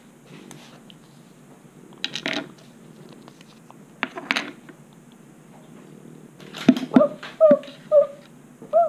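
Plastic toy packaging being handled, with short crinkly plastic clicks about two and four seconds in as the halves of a plastic capsule ball are worked open. In the last two seconds comes the loudest part: a string of short, high yips, about two a second.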